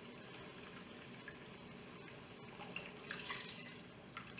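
Chicken broth being poured from a carton through a measuring cup into a pressure cooker's pot: a faint, steady trickle and splash of liquid, with a few light clinks about three seconds in.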